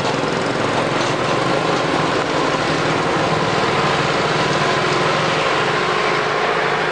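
Diesel engine of a Mitsubishi light truck loaded with sugar cane, running steadily as it drives past close by, mixed with the higher buzz of a small motorcycle engine alongside.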